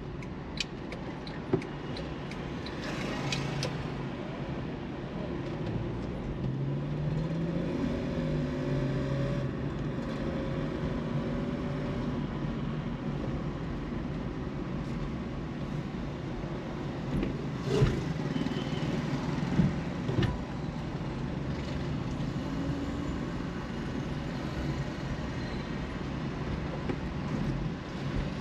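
Car driving along a street: steady road and engine noise. An engine note rises and falls a few times about a quarter of the way in, and a few sharp knocks stand out, two near the start and two or three about two-thirds of the way in.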